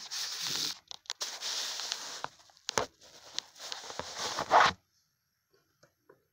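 Phone handling noise: fingers and hand rubbing, scraping and knocking against the phone over its microphone as it is repositioned, in irregular bursts with sharp clicks, giving way about five seconds in to a few faint clicks.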